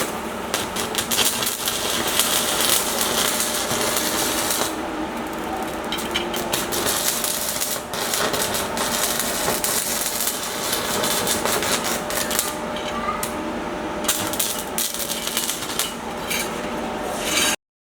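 Continuous crackling and clicking workshop noise of metalwork with a faint steady hum underneath; it starts and cuts off abruptly.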